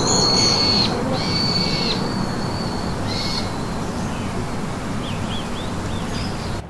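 A bird calling in long, level whistled notes, three in a row over the first three seconds, then a few short chirps, over a steady background hiss of outdoor ambience.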